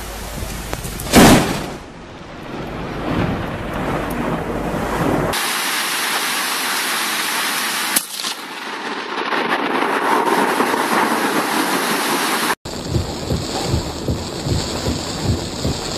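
A sharp thunderclap from a close lightning strike about a second in, dying away quickly into rumble. Then heavy rain, with another short crack about eight seconds in, and near the end downpour with gusts of wind buffeting the microphone.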